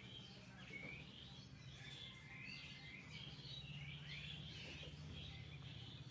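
Small birds chirping faintly in the background, a quick run of short twittering calls one after another, over a faint steady low hum.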